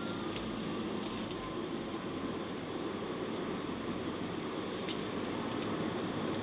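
Steady road and engine noise inside a moving car's cabin, picked up by a dashcam's built-in microphone, with a faint click about five seconds in.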